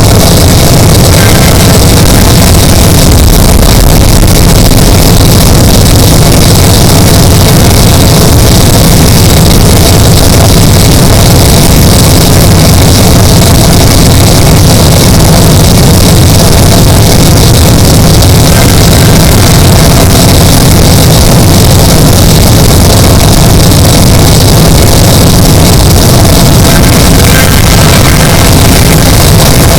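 Extremely loud, heavily distorted steady rumbling noise, clipping at full volume without a break.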